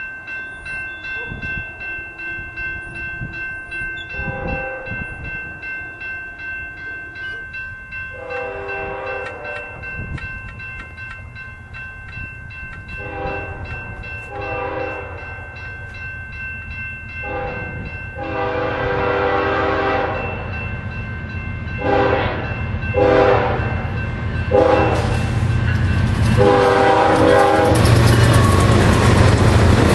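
GE ES44DC diesel locomotives approach a grade crossing, their Nathan K5HL air horn sounding a string of long and short blasts that grow louder, while the crossing bell rings steadily. Near the end the locomotives pass close by with a loud engine rumble.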